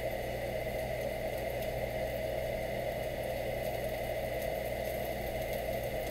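A steady mechanical hum and whir, like a motor or fan running, unchanging throughout.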